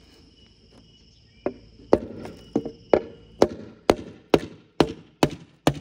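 Hammer blows on a pine board, about ten sharp strikes at roughly two a second, starting about a second and a half in: knocking out an arrow stuck fast in the wood.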